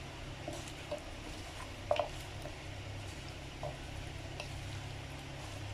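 A hand mixing raw chicken wings with spices in a bowl: a few faint wet squelches and small taps, the loudest a close pair about two seconds in, over a steady low hum.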